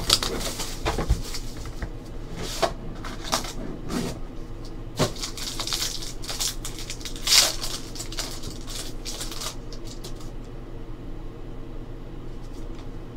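Hands opening a pack of trading cards: a foil wrapper crinkling and tearing in irregular rustles, with a few sharper crackles about halfway through, then softer handling of the card stack.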